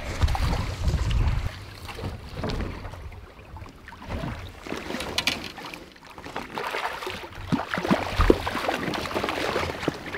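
River water splashing and sloshing as a landing net is worked through the current around a hooked steelhead thrashing at the surface beside a drift boat. A low wind rumble on the microphone in the first second and a half.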